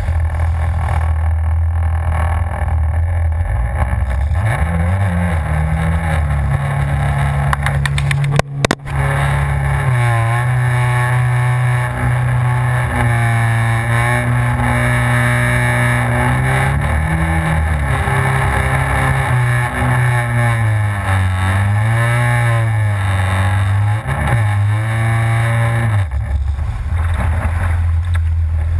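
Yamaha FZS jet ski's four-stroke engine running hard, its pitch rising and falling with the throttle as it rides the waves. About eight and a half seconds in there is a brief sharp break in the sound.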